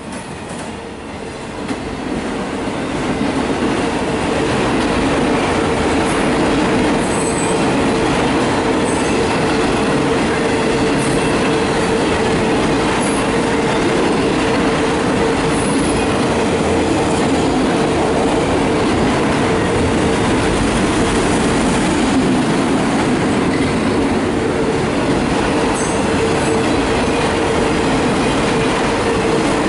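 Empty CSX autorack freight cars rolling past at close range: a steady rumble of wheels on rail with a sustained whine running through it. The sound swells over the first few seconds and then holds steady.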